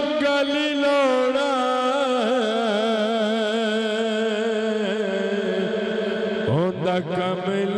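A man's voice singing a Punjabi devotional manqabat into a microphone, holding long wavering notes with quick ornamental turns; about six and a half seconds in he slides sharply up from low into a new phrase.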